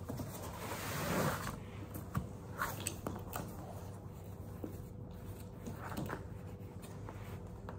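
Packaging being handled and opened: crinkling and rustling with a few short scrapes and taps, loudest about a second in.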